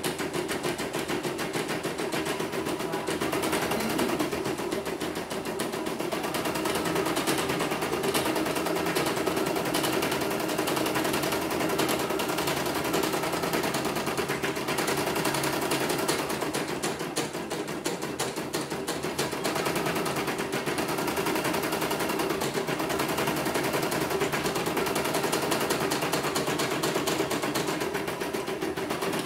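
CNY portable embroidery machine stitching out a design, its needle clattering in a fast, even run of clicks over a steady hum. It runs without stopping, as a test stitch-out after repair of a machine that had gone totally dead.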